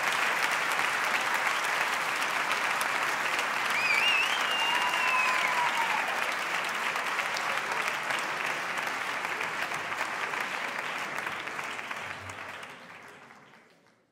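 Audience applauding steadily, with a single whistle that rises and falls about four seconds in; the applause fades out near the end.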